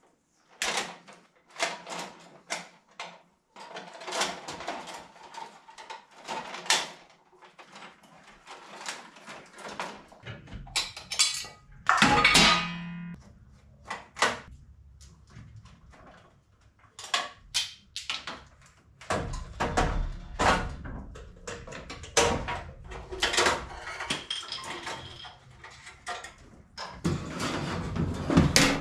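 Irregular clicks, knocks and clatter of hands-on work on an old Pushmatic electrical panel: metal panel parts, tools and wiring being handled and pulled. A longer, louder rattle comes about twelve seconds in, and a low hum joins from about ten seconds.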